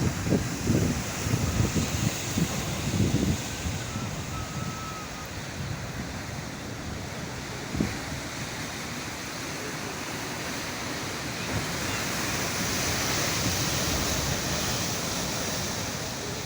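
Sea waves breaking and washing on the shore, with wind buffeting the microphone in the first few seconds. The surf swells louder about two-thirds of the way through.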